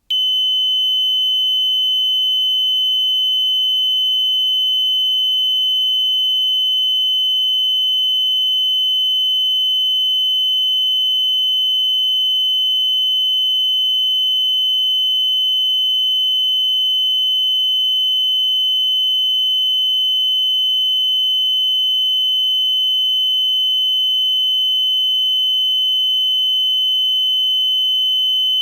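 Heart monitor flatline: one continuous high-pitched beep that starts suddenly and holds steady without a break, the monitor's sign of no heartbeat.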